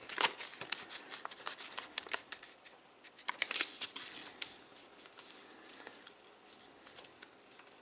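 Thick paper crinkling and crackling as fingers fold it and press a corner into a tight point, in irregular sharp crackles and rustles that thin out in the second half.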